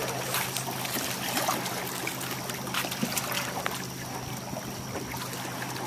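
Water lapping and trickling at a rocky shoreline, with scattered knocks and scrapes as a plywood boat is slid over the rock into the water.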